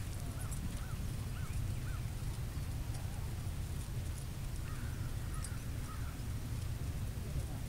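Steady low rumble of wind on the microphone, with a bird calling four short rising-and-falling notes about half a second apart in the first two seconds, and fainter chirps around five seconds in.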